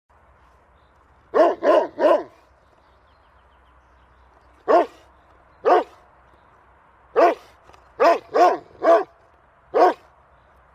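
A dog barking in short, separate barks: a quick run of three about a second and a half in, then single barks a second or more apart, another run of three, and a last bark near the end, ten in all.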